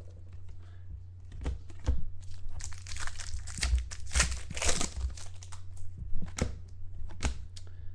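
Trading card pack wrappers being torn open and crinkled, with cards being handled, in a run of crackly rustles and small clicks that is busiest in the middle, over a steady low electrical hum.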